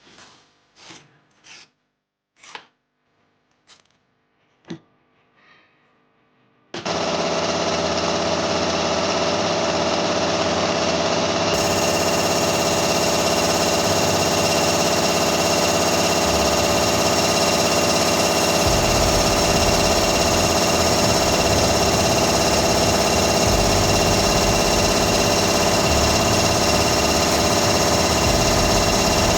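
A few scattered clicks, then a Makita hammer drill switches on about seven seconds in and runs continuously at a steady speed.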